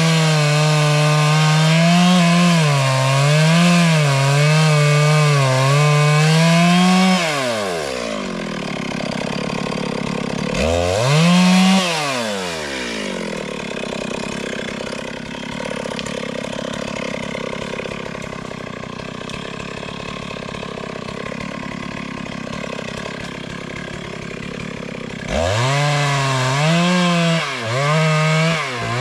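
Chainsaw at full throttle cutting wood, its pitch wavering under load, for about seven seconds, then dropping to idle. It revs up briefly once about eleven seconds in, idles for a long stretch, and goes back to full throttle cutting near the end.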